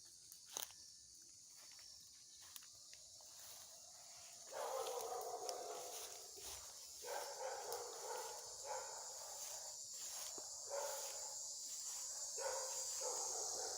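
Cicadas singing: a steady high buzz throughout, joined about four seconds in by a louder, lower cicada song that swells and breaks off every second or two.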